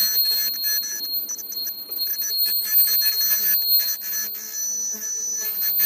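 TC-150 ultrasonic cutting machine running as fabric is fed through it: a steady high-pitched whine made of several tones at once, broken by many brief gaps and clicks.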